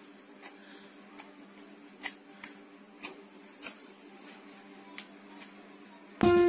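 A low steady hum with a handful of short sharp clicks, then music starts suddenly just before the end.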